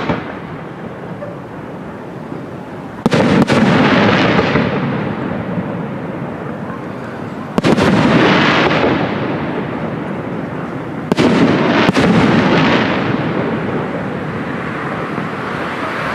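Aerial firework shells bursting: four loud bangs a few seconds apart, the last two close together, each trailing off in a long rolling rumble.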